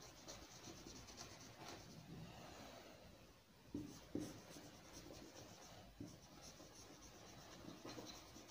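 Faint scratching strokes of a marker pen writing on a whiteboard, with a few soft taps around the middle.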